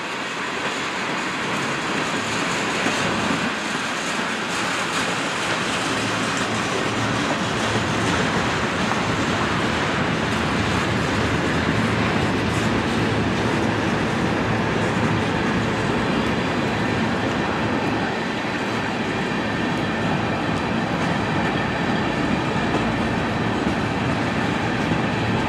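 Freight train of tank cars and covered hopper cars rolling past: a steady noise of steel wheels on the rails, growing a little louder over the first few seconds and then holding even.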